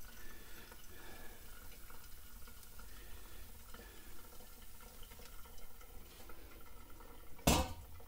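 A thin stream of water poured from a stainless steel kettle onto coffee grounds in a pour-over filter cone: a faint trickle. Near the end, a sharp clunk as the kettle is set down in the sink.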